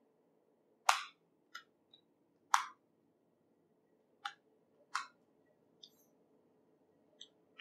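3D-printed Rubik's Cube-style puzzle cabinet clicking as its layers are twisted by hand: two loud clacks about a second and a half apart near the start, then a run of fainter, irregular clicks.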